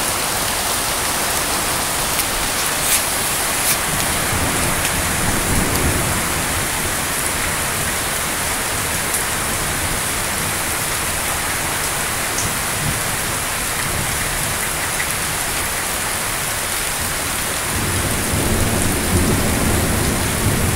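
Heavy rain falling steadily, with a low rumble of thunder swelling briefly a few seconds in and again near the end.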